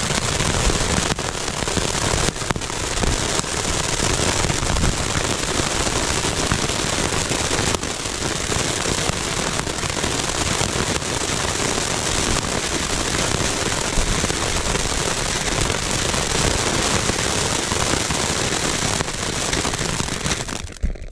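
Chrysanthemum ground fountain firework burning: a steady, loud rushing hiss of spraying sparks with a few sharper cracks. It cuts off abruptly at the end.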